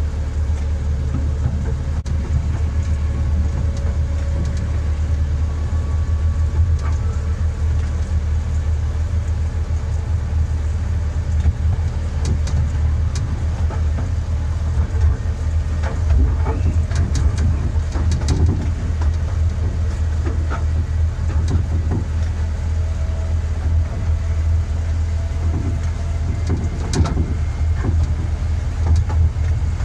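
12-inch gauge miniature train running along the track, a steady low drone from the locomotive with scattered sharp clicks and knocks from the wheels over rail joints and points, clustered in the middle and near the end.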